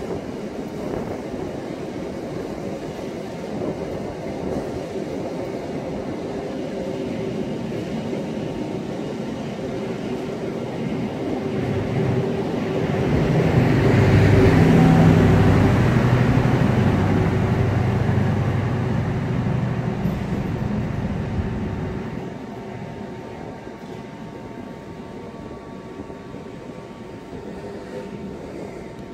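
KAI long-distance passenger train pulling out of the station, its carriages rolling past. The sound builds to its loudest about halfway through, with a low engine drone, then fades as the train goes.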